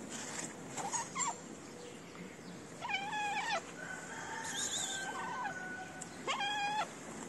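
Calico cat meowing for food: a short call about a second in, then two longer meows about three seconds apart.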